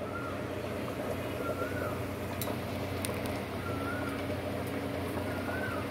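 A steady low mechanical hum, with a short wavering squeak that repeats about every two seconds and a couple of light clicks as pav is set down on the tawa.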